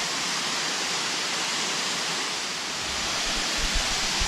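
Waterfall cascade rushing in a steady, even roar of falling water, with a few soft low bumps near the end.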